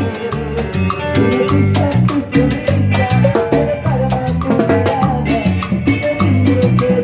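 Live Latin dance band playing an instrumental passage: a pulsing bass line under busy drums and percussion, with no singing.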